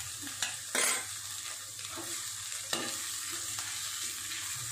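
Chopped capsicum sizzling in hot oil in a metal kadhai while a perforated metal skimmer stirs it, with a couple of louder scrapes of the spoon against the pan, about a second in and again near three seconds.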